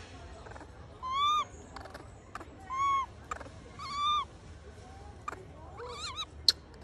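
Baby macaque crying: three clear coo calls, each rising and falling in pitch, about a second apart, then softer wavering calls. A sharp click near the end.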